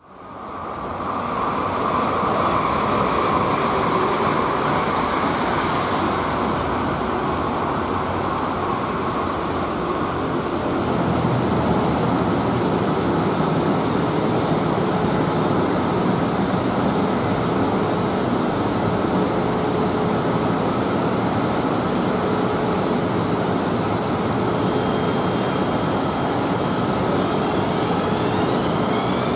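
A KTM Class 25 diesel locomotive hauling a passenger train draws closer, its engine heard as a steady rumble over a continuous background noise. Near the end several rising whining tones come in.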